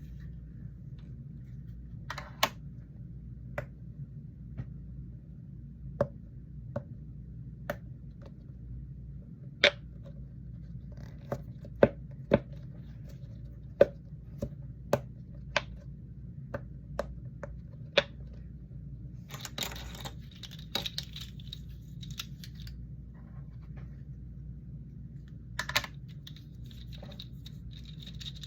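Irregular sharp clicks and taps of small objects being handled, some a second or more apart and some in quick pairs, with a brief scratchy rustle a little after the middle and another near the end, over a steady low hum.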